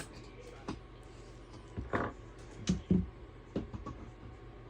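A handful of short, scattered knocks and taps, about five in a few seconds, as flat-pack furniture parts are handled and set down.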